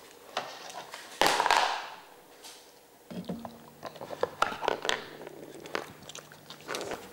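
A dog nosing at a Trixie Gambling Tower treat puzzle and eating the treats: scattered clicks and knocks of its plastic and wooden pieces mixed with chewing. There is one louder clatter about a second in.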